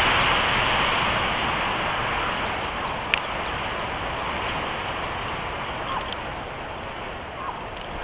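Wind rushing steadily over the nest-cam microphone, easing a little as it goes on, with a sharp click about three seconds in and a few faint high chirps.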